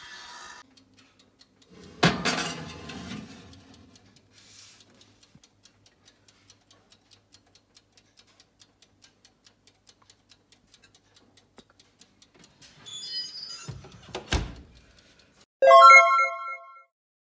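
A glass baking dish clunks onto the oven rack, then the oven's mechanical timer ticks steadily, about four ticks a second. Near the end there is a knock and a thud, followed by a short musical jingle.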